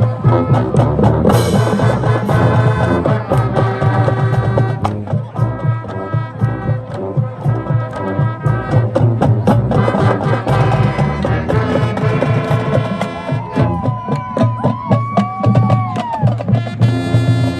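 High school marching band playing, brass over a steady drum beat. Near the end a single line slides up and down in pitch above the band.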